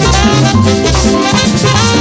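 Live merengue band playing an instrumental passage: saxophones and trumpets over a driving rhythm of tambora, congas, güira and electric bass.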